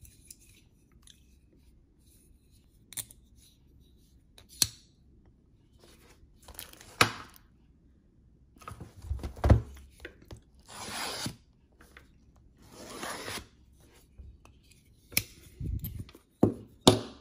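Packaging of a basketball trading card box being torn open and handled. Scattered sharp taps and knocks, with two longer tearing sounds of about a second each in the middle.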